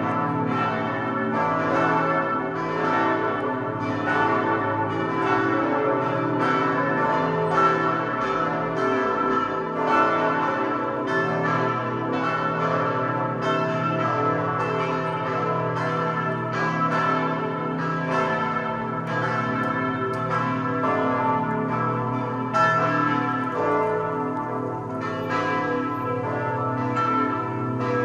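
Five church bells tuned A, B, C-sharp, E and A ringing together, the largest a 3,116 kg Pfundner bell cast in 1961. The strikes come in an uneven, continuous stream and overlap, and each bell's tone keeps ringing under the next strokes.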